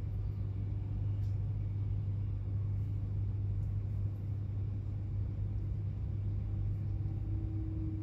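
Steady low rumble of an Avanti West Coast train running on the rails, heard from inside the passenger cabin. A faint steady tone joins the rumble about seven seconds in.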